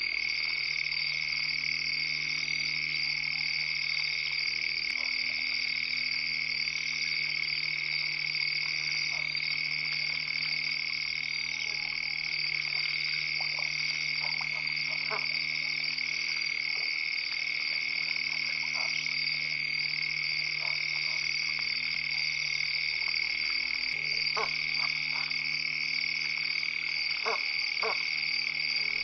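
A dense, unbroken chorus of frogs calling at a waterhole, a steady high-pitched ringing trill. A few lower, separate calls stand out now and then, more of them near the end, over a faint steady low hum.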